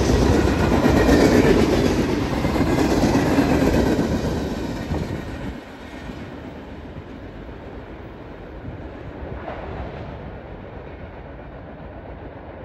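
Freight cars of a manifest train rolling past on steel wheels, a loud steady rumble. About five and a half seconds in it drops off sharply as the last car passes, leaving a faint rumble as the train moves away.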